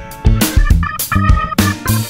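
Background music with electric guitar, bass and a steady drum beat.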